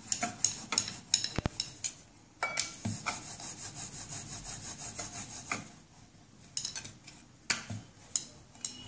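Rolling pin rubbing back and forth over a round rolling board as thepla dough is rolled out flat, in repeated strokes with a few light knocks.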